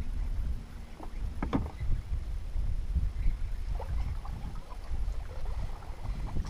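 Small waves lapping and slapping against the hull of a bass boat, an uneven low sloshing, with a few short sharp knocks about a second and a second and a half in.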